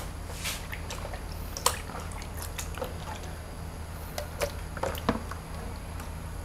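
Raw chicken breasts squelching and splashing as hands squeeze them in a plastic basin of salted cornstarch water, then lift them out dripping onto a plate. Scattered short splashes and clicks over a steady low hum.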